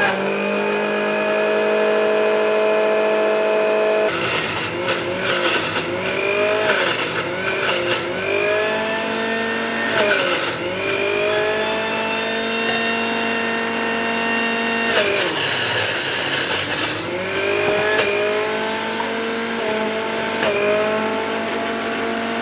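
Preethi Zodiac mixer grinder running with its juicer jar, juicing beetroot and pomegranate. The motor whines steadily and dips in pitch and climbs back several times, with a rough grinding noise over it from about four seconds in.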